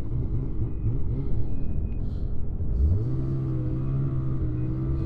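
Snowmobile engine running at low, uneven revs, then revving up about three seconds in and holding a steady high pitch, with wind buffeting the microphone.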